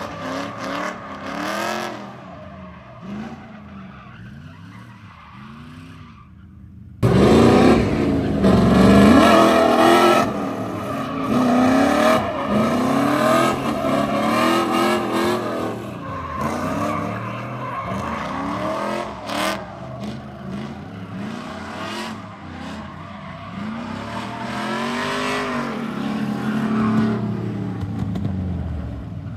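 Drift cars in a tandem run, engines revving up and down hard with tyres squealing as they slide sideways through the corners. The sound cuts out briefly about seven seconds in, then comes back much louder and closer.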